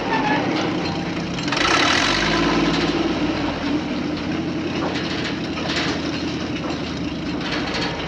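Remote-control toy bulldozer running as it crawls through dry leaf litter, with a steady engine-like drone. Louder crackling of leaves comes about two seconds in and again around six seconds.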